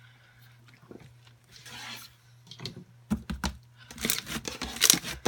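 Foam bead slime being squished and stretched by hand, the foam balls giving crunchy crackles and clicks. The crackling starts about three seconds in and gets louder and denser near the end.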